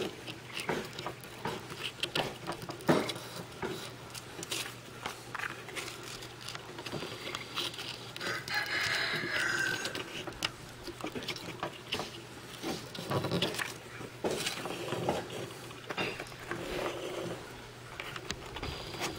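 A sheet of sandpaper being folded, creased and wrapped around a small wooden sanding block by hand: irregular crinkles, scrapes and light clicks, with a longer rustle near the middle.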